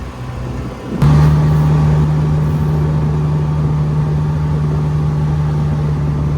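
Side-by-side utility vehicle's engine running under way; about a second in it suddenly gets louder as the throttle opens, then settles into a steady drone.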